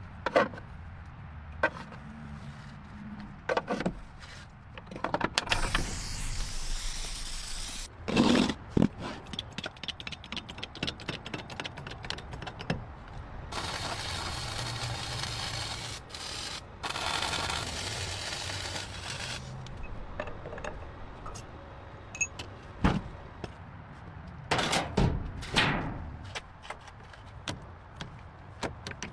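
Workshop hand-tool work: scraping and rubbing, with scattered knocks and clicks and two longer stretches of steady hiss.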